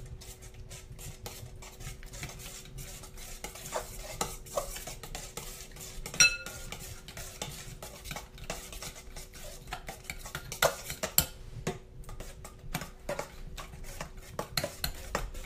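Metal spoons stirring thick, gooey slime in a stainless steel bowl and a glass bowl, with irregular scraping and clinking against the bowl sides as the glue mixture thickens with liquid starch. About six seconds in, one sharp clink rings out briefly.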